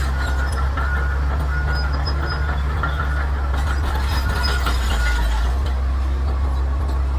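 Bulldozer's diesel engine running steadily with a deep drone, with an on-and-off high squeal and scattered clanks from its steel tracks.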